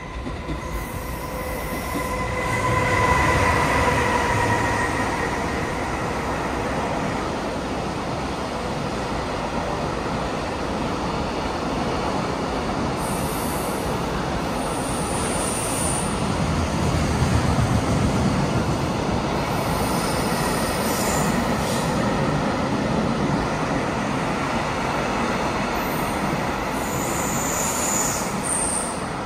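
JR Freight EF210 electric locomotive running through with a container freight train: a steady whine from the locomotive over the first few seconds as it passes, then a long, continuous rumble and clatter of container wagons over the rails. Brief high squeals from the wheels come and go in the second half.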